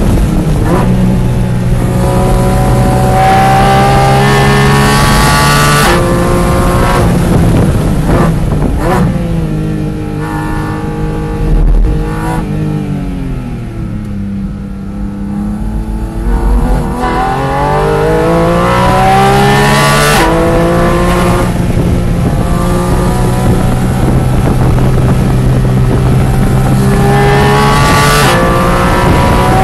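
Porsche 718 Cayman GT4 RS's 4.0-litre flat-six, heard from inside the cabin at full throttle on track. It revs up through a gear with an upshift about six seconds in, then runs down through a series of downshifts, the revs jumping at each, while braking hard for a slow corner. It bottoms out and accelerates back up through the gears, with upshifts near the middle and the end.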